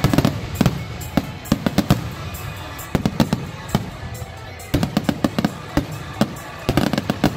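Fireworks display: many sharp firework bangs and crackles going off in quick, irregular clusters, with a couple of brief lulls between volleys.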